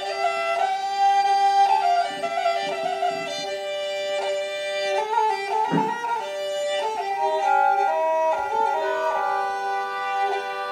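A Nepali sarangi, the bowed folk fiddle, plays a melodic instrumental introduction to a Nepali folk duet, over a steady held note, with electronic keyboard accompaniment.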